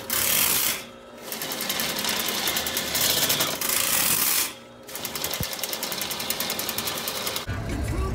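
Drain-cleaning machine running, its spiral cable spinning and rattling fast in a sewer cleanout pipe, stopping briefly twice. Near the end it gives way to road rumble and music.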